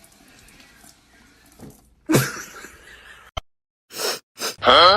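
A sudden, short noisy sound about two seconds in, then a click and two quick hisses, and near the end a cartoon 'boing' sound effect with a bouncing pitch.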